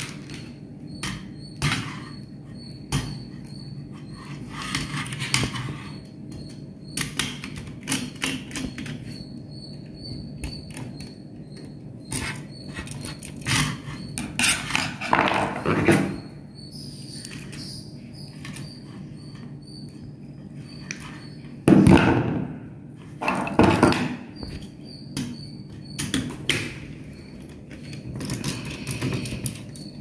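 Close handling noises from wiring a modular switch plate: scattered clicks, scrapes and rustles of a screwdriver, stiff insulated wire and the plastic plate, with a louder knock about three quarters of the way through.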